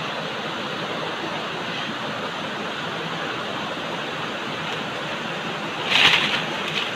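Steady rushing of flowing river water. About six seconds in, a plastic sack rustles briefly as a fish is slid into it.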